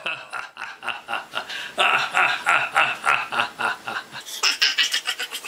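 A man laughing: a long run of quick, repeated 'ha' sounds, getting louder about two seconds in.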